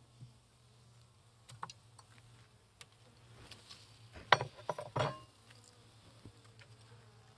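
Honeybees humming steadily around an open hive, with a few light knocks and clicks as a wooden hive frame is handled; the two loudest knocks come about four and five seconds in.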